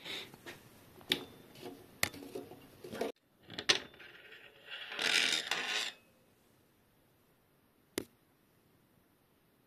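Bicycle bottom bracket facing tool being handled: a few sharp metallic clicks and taps from the tool and its handle. Then about a second of metal scraping as the toothed facing cutter is slid off its guide shaft, and one more single click near the end.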